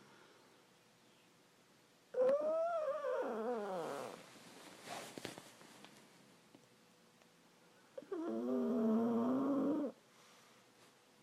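Small dog snoring: two long snores with a clear droning pitch, about two seconds each. The first rises then falls; the second, near the end, is lower and steadier. A soft breathy sound lies between them.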